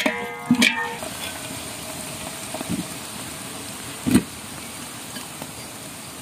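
Oil sizzling steadily in a metal kadai as diced potatoes, peanuts and curry leaves fry, after a second of a slotted metal ladle scraping and clinking against the pan; a single knock about four seconds in.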